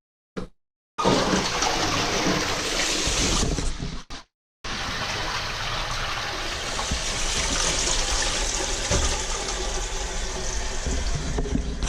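Toilet flushing and its tank refilling, a loud steady rush of water, broken by two short silences early on and about four seconds in.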